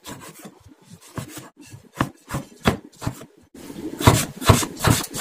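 Kitchen knife chopping a tomato on a plastic cutting board: a series of knife strokes against the board. They come louder and quicker, about three a second, from about four seconds in.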